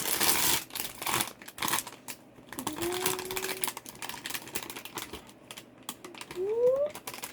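A cardboard blind box and its plastic packaging being opened by hand: quick rustling and clicking, dense in the first two seconds, then sparser taps and handling.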